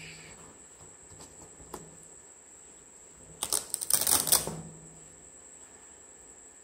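A hook-and-loop (Velcro) strap is ripped open, giving a rapid crackling tear that lasts a little over a second, starting about three and a half seconds in. There is a faint tap a couple of seconds earlier.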